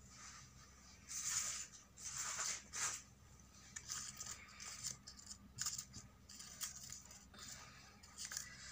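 Paper rustling as handmade rolled-paper roses are handled and set down, with two louder rustles in the first three seconds, then a string of shorter, softer ones.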